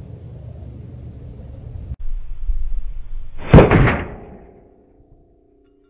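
A single .40 cal pistol shot, a 165-grain load, about three and a half seconds in, the bullet striking a large motorhome hubcap. A ringing tone follows the shot and fades away over about three seconds.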